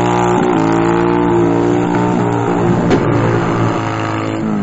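Motorcycle engine held at high revs during a burnout, the rear tyre spinning against the pavement. The engine note stays fairly steady and starts to drop away near the end.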